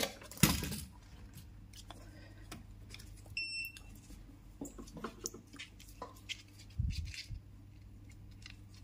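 A circuit board handled and turned over on a rubber work mat: a knock about half a second in, light clicks and a dull thud near the end. A single short electronic beep sounds about three and a half seconds in, over a steady low electrical hum.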